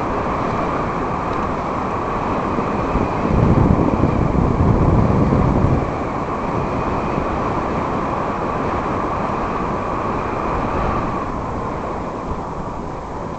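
Wind rushing over the camera microphone on a moving bicycle, mixed with the rolling noise of the bike. About three seconds in, a louder, deeper buffeting gust lasts for a few seconds.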